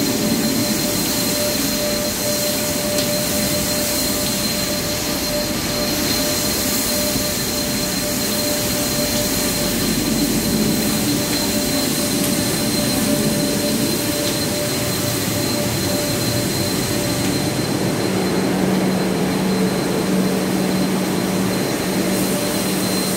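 Metro train standing at a platform with its doors open, its onboard equipment giving a steady hum and rush of noise with a high steady whine throughout; a lower hum comes in near the end.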